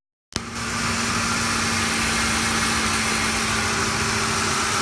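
Ford F-150's 5.4-litre V8 idling steadily and smoothly with a newly fitted Spectre cold air intake, a constant low hum under a wide hiss. The sound cuts in with a click a fraction of a second in, after a brief dropout.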